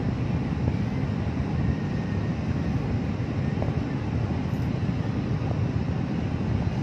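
Steady low rumble of vehicle noise heard inside the cabin, engine and road noise with some wind noise on the microphone.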